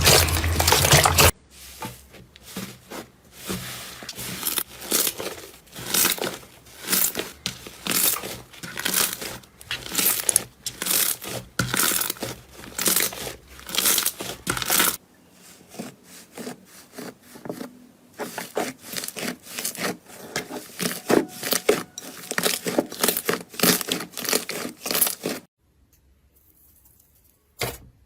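Slime being squished and pressed, giving off dense, irregular crackling and crunching pops, in two stretches with a break about halfway. It opens with about a second of a louder continuous sound and falls quiet near the end.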